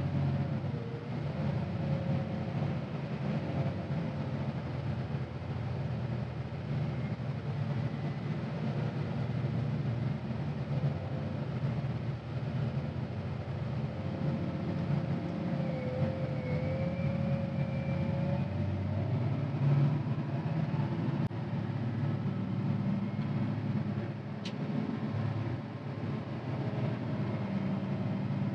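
CAT 950GC wheel loader's diesel engine running steadily while it drives and pushes snow, heard from inside the cab, with a faint whine that wavers in pitch.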